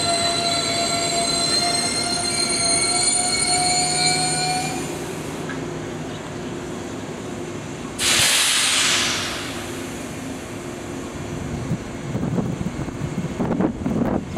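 JNR 583 series sleeper EMU drawing to a stop with brakes squealing in several steady high tones, which die away about five seconds in. About eight seconds in, a sudden loud hiss of air lasts a second or so, typical of the air brakes venting once the train has stopped. Near the end, irregular gusts of wind buffet the microphone.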